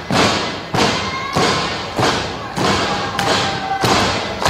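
Rhythmic heavy thuds at a pro wrestling match, evenly spaced at about three every two seconds, with thin held tones sounding over them.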